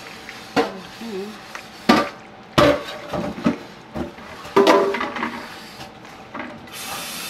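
Plastic colander knocking on the rim of a nonstick skillet as macaroni is tipped in, then a silicone spatula stirring and scraping the pasta in the pan: a string of irregular knocks and clatters. Near the end a steady hiss starts.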